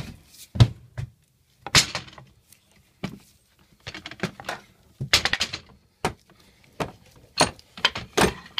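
Hammer heads and wooden handles knocking and clinking against each other and a metal rack as a hammer is put among them: a run of irregular knocks and clatters, some with a short metallic ring.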